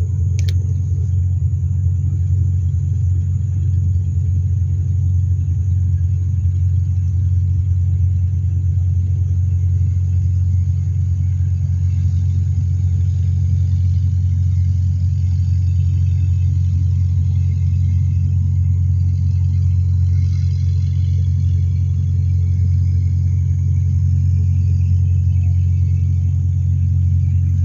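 Steady low drone of a running engine, unchanging in level and pitch, with a single short click just after the start.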